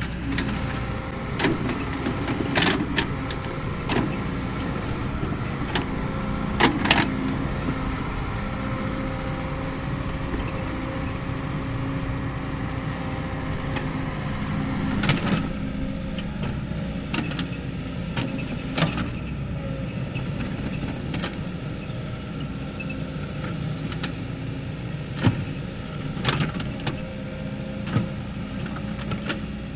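Kobelco SK75 excavator's diesel engine running steadily while it works, with frequent sharp clanks and knocks scattered throughout.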